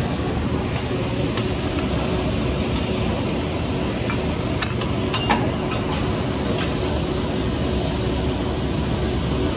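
Vegetables sizzling on a hot steel teppanyaki griddle as they are stirred, with a few sharp clicks of metal utensils on the griddle about five to six seconds in, over a steady low rumble.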